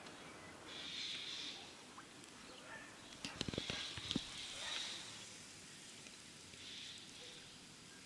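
Faint steady hiss of water flowing in a shallow canal. A little past the middle, a quick cluster of low thumps and clicks stands out as the loudest part.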